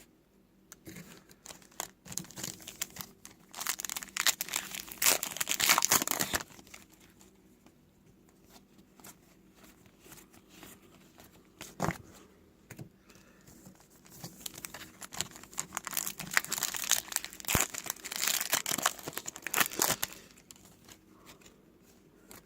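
Foil wrapper of a Topps trading card pack crinkling and tearing as it is opened, in two stretches of crackling with a single sharp click between them.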